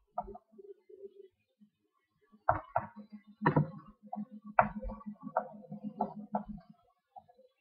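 A run of about ten irregular light clicks and knocks, with a low steady hum under them through the middle.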